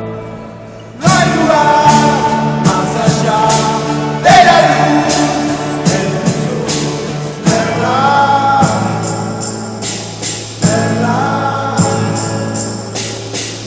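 A band playing a song with sung vocals and regular drum and cymbal hits. After a brief lull at the start, the full band comes back in loudly about a second in.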